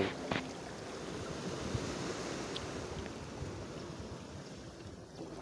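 Small sea waves washing and lapping against rocks at the water's edge, a steady rushing noise of moving seawater.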